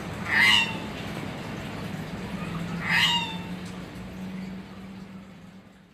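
Gagak pencalang, a Sulawesi crow, giving two short, slightly falling calls about two and a half seconds apart, over a steady low hum that fades out near the end.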